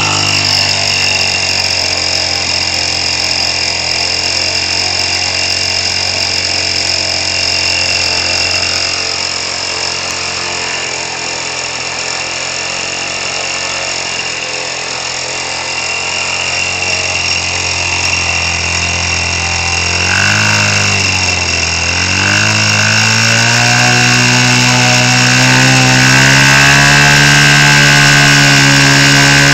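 Small gas engine converted to swing an 18x12 model-airplane propeller, running steadily. About twenty seconds in its revs sag and pick back up, then it holds at a slightly higher, louder speed. It is running on a 50 cc chainsaw carburettor that, by the uploader's account, is too big for it, and the 18x12 prop is too big for it as well.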